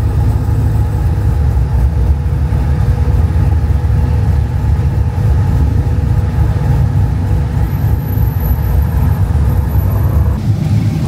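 A pickup truck's engine running with a steady low rumble. The sound shifts abruptly near the end.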